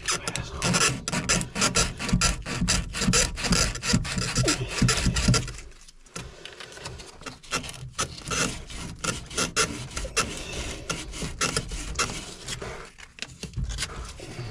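Rapid, irregular rubbing and rasping strokes of hand work on a PVC pipe joint, pausing briefly about six seconds in.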